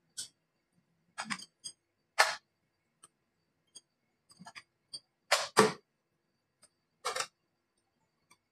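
Metal hand tools (wrench and feeler gauge) clicking and clinking against the valve gear of a Toyota diesel cylinder head during tappet (valve clearance) adjustment. The clicks are sharp and come at irregular intervals, the loudest a close pair about five and a half seconds in.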